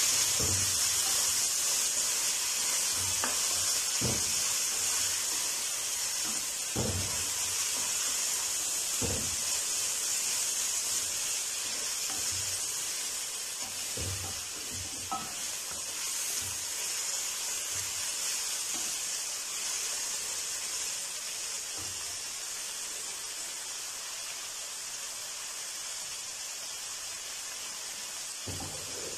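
Chopped vegetables sizzling as they fry in an aluminium kadai, the sizzle slowly dying down. A wooden spatula knocks and scrapes against the pan now and then as it stirs.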